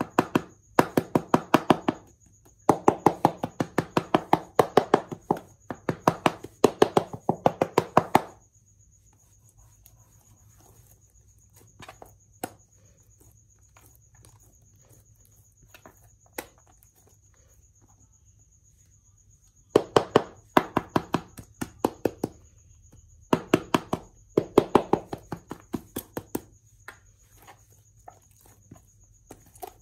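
Clear slime being squeezed and pressed by hand, giving rapid runs of small clicking pops. They come in two spells of several seconds each, with a mostly quiet stretch between.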